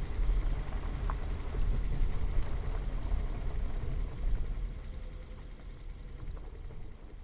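Subaru Crosstrek SUV running with a steady low rumble and a faint steady hum, dying away gradually over the last few seconds.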